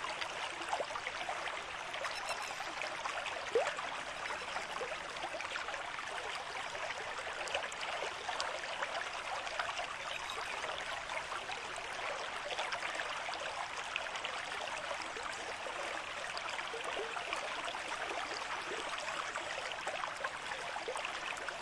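Steady flowing river water, a continuous trickling and babbling rush, with one short tick about three and a half seconds in.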